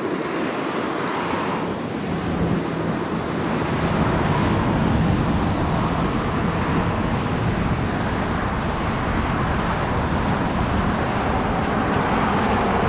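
Jet airliner engine noise, a steady rush with a low hum, growing louder over the first few seconds and then holding steady.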